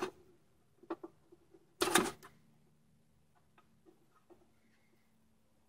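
Clicks and light clatter of battery leads and small plastic plug connectors being handled and unplugged: a small click about a second in, a louder cluster about two seconds in, then faint scattered ticks and another sharp click at the very end.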